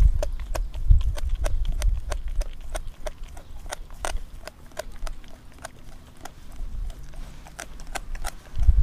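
Doberman gnawing on a raw frozen pig's foot: irregular crunching clicks of teeth on bone and frozen meat, about three a second. Underneath is a low rumble that grows loud near the end.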